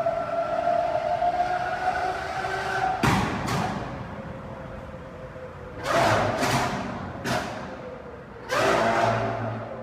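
Lamborghini engine revved in short, loud throttle blips, each one dying away over about a second: a pair about three seconds in, a cluster around six to seven seconds and a longer one near the end, over a steady droning tone.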